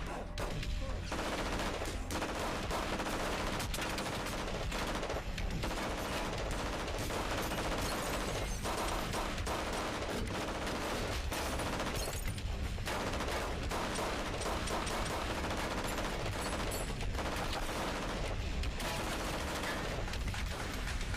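Gunfire in a TV drama shootout, played back as episode audio: repeated shots and rapid bursts go on throughout, an automatic rifle firing bursts while a pistol answers with single shots.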